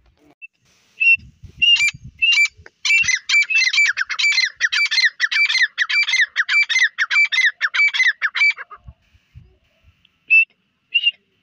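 Grey francolin calling: a few single shrill notes, then a fast run of repeated calls lasting about six seconds, then a couple more single notes near the end.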